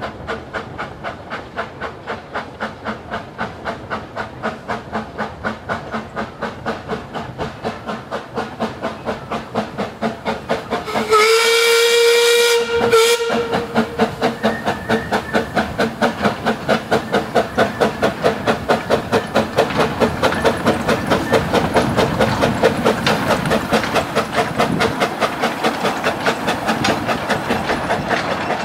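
Narrow-gauge Quarry Hunslet 0-4-0 tank locomotive chuffing steadily, with rapid, regular exhaust beats that grow louder as it approaches. About eleven seconds in it sounds its steam whistle, one blast of about two seconds that breaks briefly near its end.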